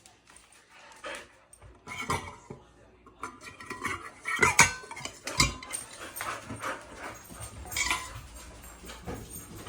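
A dog making short sounds among sharp clattering knocks, the loudest knocks about four and a half and five and a half seconds in.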